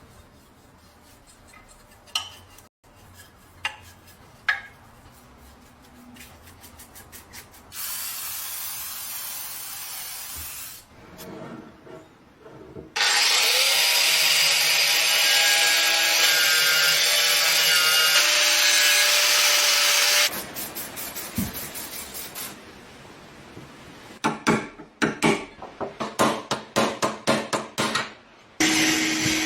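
Rust being worked off a metal lock with tools. There are a few sharp clicks and knocks, then a short stretch of steady scraping. A power tool runs loudly for about seven seconds and stops abruptly. After that come quick back-and-forth rubbing strokes, and a motor starts up with a steady hum near the end.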